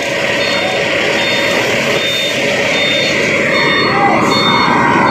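Heavy truck's engine running loudly close by as the truck manoeuvres, with a high reversing beeper sounding in short regular beeps over it.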